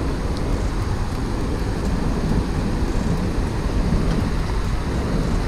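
Steady wind noise buffeting the microphone, a constant low rumble without breaks.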